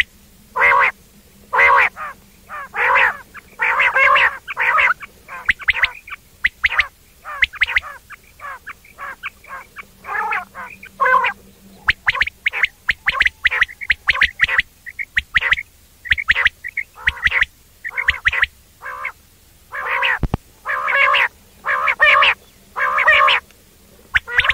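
Quail calling a long run of short nasal "wong wong" notes, in quick bursts with brief pauses between them.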